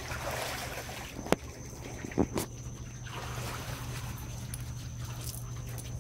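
A towel rubbing a small wet poodle dry, in bursts of rustling, with two sharp knocks about a second and two seconds in. A steady low hum from the running hot tub pump lies underneath.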